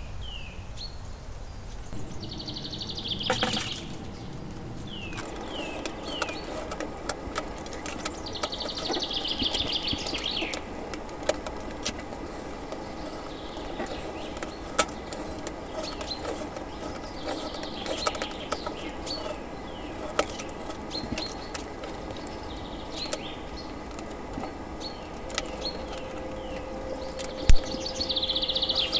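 Small birds chirping, with short falling chirps and several rapid trills, over a steady background hiss, with scattered light clicks. A single dull thump near the end is the loudest sound.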